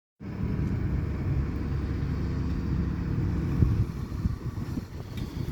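Heavy diesel engine of a dump truck running with a steady low rumble. A sharp knock comes a little past halfway through, after which the engine drops to a lower, more uneven level.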